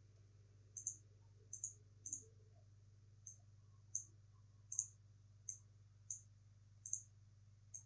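Faint computer mouse button clicks, about ten of them at irregular intervals, some in quick double pairs, over a faint steady low hum.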